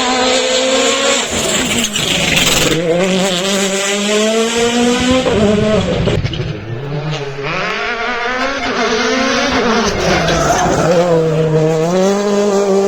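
Rally car's turbocharged engine driven hard. Its pitch climbs under full throttle, then drops sharply at gear changes and lifts, several times over.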